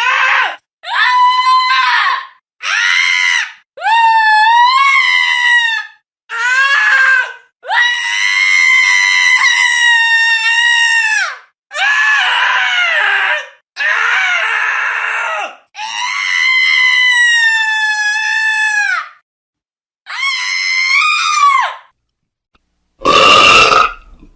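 A high-pitched voice screaming over and over, about ten shrill cries of one to three seconds each with short gaps, the pitch arching up and down within each cry. Near the end comes one shorter, rougher and lower sound.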